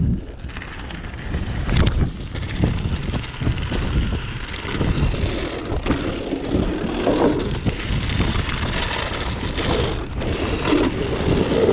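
Mountain bike running fast downhill over rough dirt trail: wind buffets the action camera's microphone while the bike rattles and knocks over the bumps, with one sharp knock about two seconds in.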